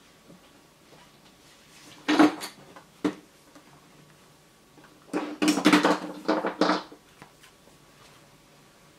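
Hard objects clattering and knocking as things are moved about while someone rummages for something. There is one short clatter about two seconds in and a single knock a second later, then a longer run of clattering from about five to seven seconds.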